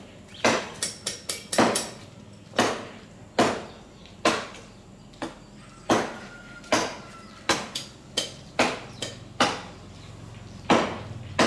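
Hammer tapping on metal at a rickshaw's rear axle hub: a string of sharp, irregular strikes, some in quick clusters, most about half a second to a second apart, with short metallic ringing.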